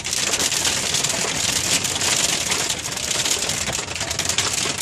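Hail pelting a car's roof and windshield, heard from inside the cabin: a steady, dense clatter of many small hits.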